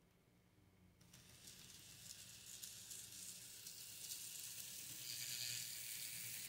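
N-scale model diesel locomotive running on the track with a string of gondolas: the small motor and rolling wheels make a high hiss that starts about a second in, grows louder as the train passes close by, and cuts off abruptly at the end.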